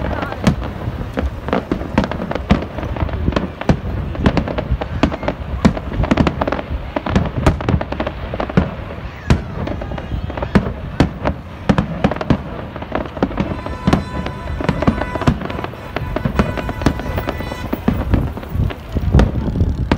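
Aerial fireworks display: many sharp shell bursts and bangs in quick succession throughout.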